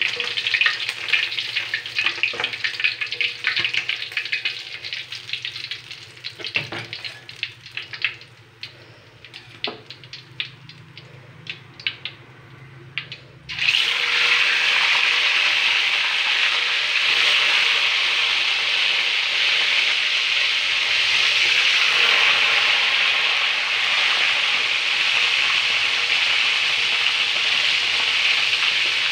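Fish deep-frying in oil in a wok: dense crackling and spitting that thins out to sparse, separate pops, then, about halfway through, a loud, steady sizzle as a fish fries in the hot oil.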